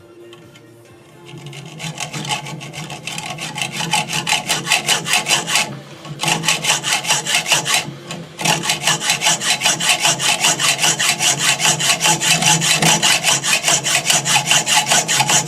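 Hand hacksaw cutting through a thin steel threaded bolt (1/4-20) with quick, even back-and-forth strokes. The sawing starts about a second in and pauses briefly twice around the middle.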